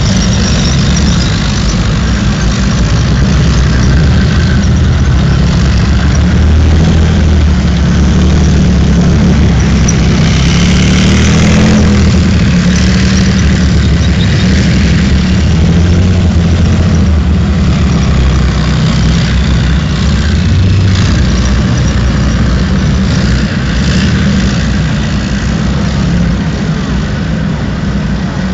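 Tracked armoured vehicles, main battle tanks and then an M113-type armoured personnel carrier, driving past. Their heavy engines run loud and steady throughout.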